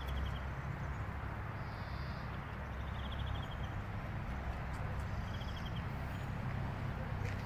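Steady low rumble outdoors, with a small bird singing a short, rapid trill of evenly spaced high notes three times, a couple of seconds apart.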